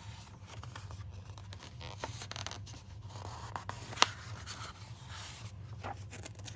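Paper rustling and scraping as a picture book's pages are handled and turned, with a few light clicks and one sharp tap about four seconds in.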